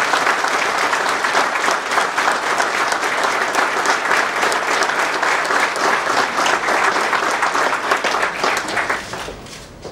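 Audience applauding in a hall, a dense steady clapping that dies away about nine seconds in.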